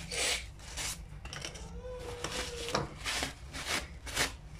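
Tissue paper rubbed and scraped along dry cinnamon bark sticks in a run of short, uneven strokes, wiping dust and dirt off the bark.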